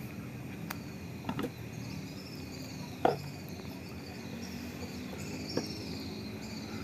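A few short clicks and knocks of pliers and small parts handled on a wooden workbench, the loudest about three seconds in, over a steady background hiss with faint high chirping.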